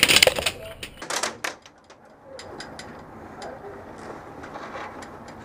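A loud clatter of knocks in the first second and a half, then a scattered string of sharp cracks, the kind made by airsoft guns firing and BBs striking hard surfaces.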